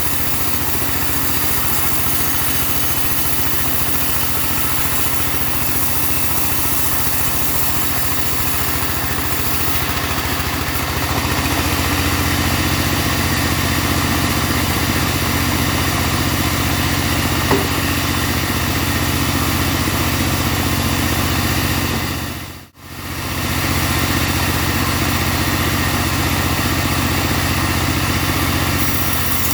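Engine of a portable bandsaw sawmill running steadily, growing a little louder about a third of the way through. The sound drops out for an instant about three-quarters of the way in.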